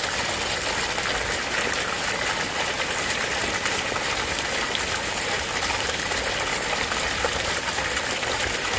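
Heavy storm runoff gushing out of a downspout elbow and splashing onto decorative rock, a steady rush of water from the volume of a hard rain coming off the roof.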